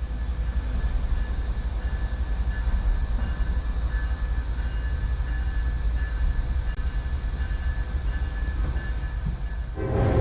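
A train passing, a steady rumble with faint high steady squealing tones over it, growing louder near the end as the horn begins to sound.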